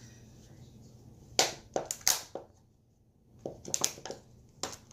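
Clear plastic lid of a takeout salad container crackling and snapping as it is pried off its base: a run of sharp cracks, a pause of about a second near the middle, then more cracks.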